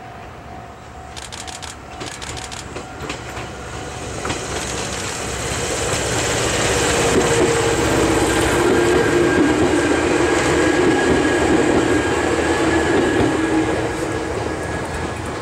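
Chichibu Railway 7500-series electric train pulling out of the station and passing close by. It grows louder, is loudest with a steady whine while the cars go past about halfway through, then fades near the end.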